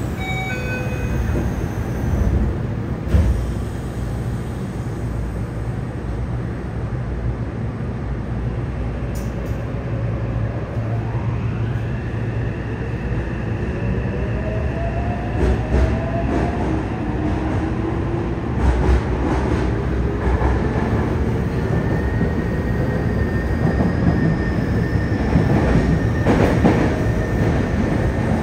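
Yokohama Blue Line 3000N subway car's Mitsubishi IGBT-VVVF inverter and traction motors, heard from inside the car over a steady running rumble. A brief chime sounds at the start. About ten seconds in, the train pulls away and the inverter whine rises in several climbing tones, settling into a steady high note.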